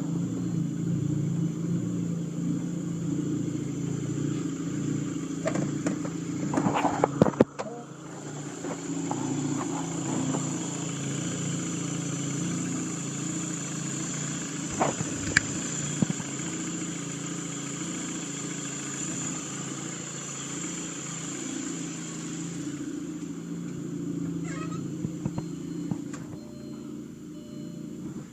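Audi A4 engine idling roughly, with an uneven, pulsing run. A few sharp clicks or knocks stand out, a cluster about seven seconds in and two more around fifteen seconds.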